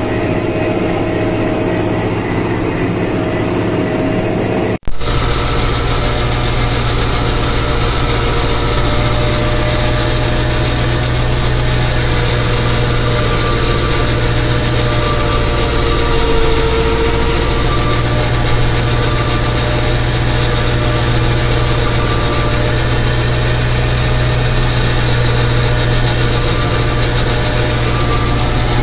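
Başak 2110S tractor's diesel engine running steadily under load while pulling a working vertical power harrow through dry soil. A brief dropout about five seconds in, after which the sound is lower and steadier.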